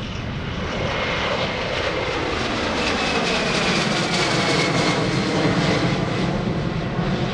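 Gulfstream G600 business jet climbing out after takeoff, its two Pratt & Whitney Canada PW815GA turbofans growing louder as it passes. A high whine and lower tones slowly fall in pitch as the jet moves away.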